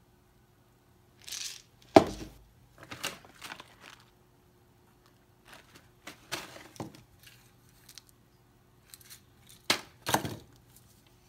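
Handling noise: scattered sharp clicks, knocks and crackling rustles, the loudest a sharp knock about two seconds in and another pair near the end, over a faint steady hum.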